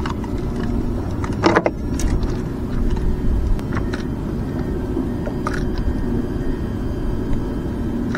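Steady low rumble of wind on the microphone, with scattered knocks and clicks from handling a freshly caught red snapper; the loudest knock comes about one and a half seconds in.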